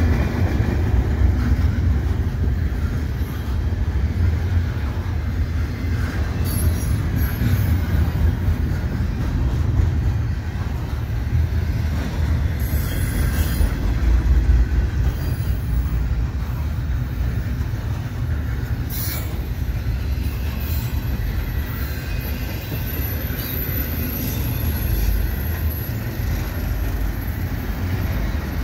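Double-stack intermodal freight cars rolling past: a steady low rumble of steel wheels on rail, with a few brief sharper knocks.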